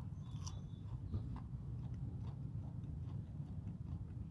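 Faint, irregular clicks, two or three a second, over a steady low hum, with a brief high beep about half a second in.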